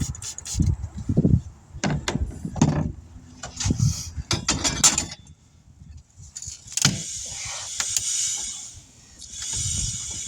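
Metal clanks and knocks of hand tire-changing work on a steel wheel rim, followed by a few seconds of steady rough scraping hiss.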